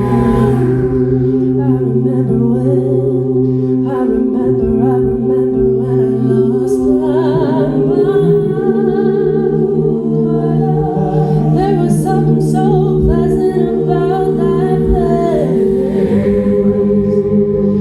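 Vocal music: several voices humming and singing long held notes, layered, with wavering higher lines over them.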